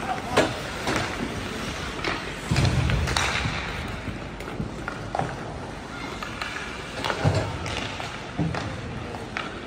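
Youth ice hockey play: hockey sticks clacking on the puck and ice, and skates scraping, with several sharp knocks and a heavier thud a few seconds in, as of puck or players hitting the boards.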